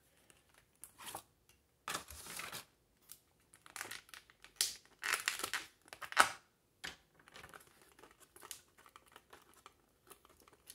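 Plastic blister-tray packaging crinkling and crackling in irregular bursts as a small action figure is worked out of it, the loudest handling a little past the middle.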